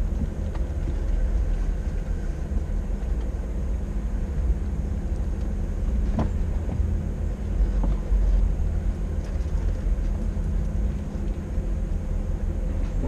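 Off-road vehicle driving along a rocky creek bed, its engine and tyres making a steady low rumble, with a sharp knock about six seconds in and another near eight seconds.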